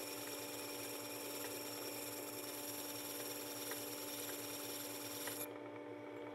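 Work Sharp power sharpener's motor running steadily with the back of a plane iron held flat on its spinning 220-grit abrasive disc, a steady high grinding hiss over the motor hum. About five seconds in the hiss cuts off as the iron is lifted from the disc, leaving only the motor hum.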